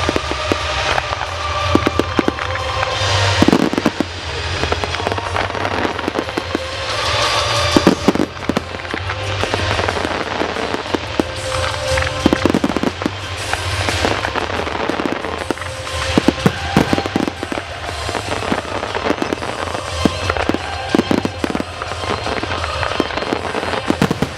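Professional firework display: many rapid bangs and crackles throughout, with music playing underneath.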